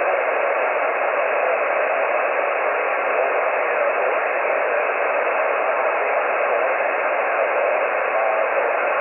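Amateur radio transceiver tuned to 14.213 MHz on the 20-metre band in sideband mode, giving a steady hiss of band noise squeezed into the receiver's narrow voice passband.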